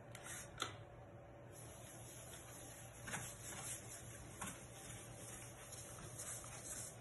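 A cloth wiping a thin metal flex build sheet clean with alcohol. Faint rubbing strokes with a few light ticks as the sheet is pressed and handled.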